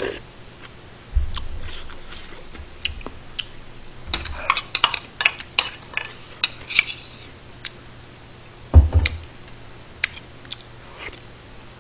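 Metal spoon clinking and scraping against a stainless steel rice bowl and a stew pot, with a quick run of clinks in the middle. Two dull knocks, one about a second in and a louder one later.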